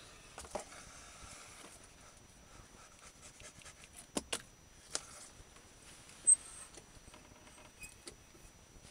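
Scattered small clicks and knocks from a homemade wooden string-and-pulley contraption being worked by hand, including a quick double knock a little past four seconds in. A brief sharp high squeak a little over six seconds in is the loudest sound.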